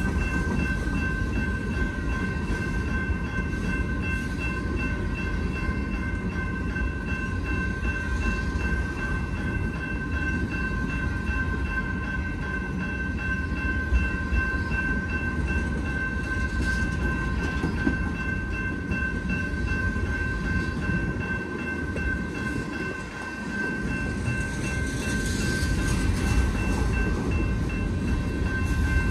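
Freight cars of a manifest train rolling past at close range: a steady low rumble of wheels on rail, with a thin steady high-pitched whine over it. The rumble eases briefly a few seconds before the end, then returns.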